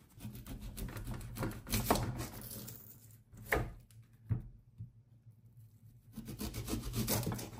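A cloth towel rubbing over wet hands to dry them for about three seconds, then a serrated knife scraping and cutting at a red onion's skin on a chopping board, with a sharp click around three and a half seconds in and a run of quick scraping strokes near the end.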